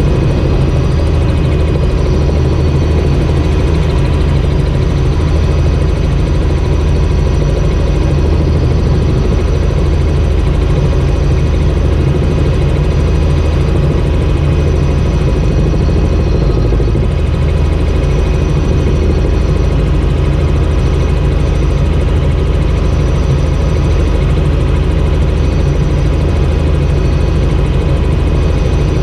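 Helicopter in cruising flight heard from inside the cabin: steady, loud engine and rotor noise that does not change.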